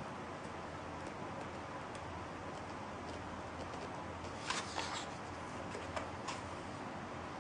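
A page of a large book being turned by hand: a short paper rustle and flick about four and a half seconds in, then a couple of light paper ticks, over a steady faint hiss.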